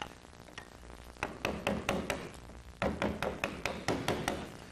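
Wooden carver's mallet tapping a 35 mm No. 5 gouge through white pine to rough out a relief carving. The strokes are short, sharp taps, a few spaced out at first, then coming quickly at about four a second.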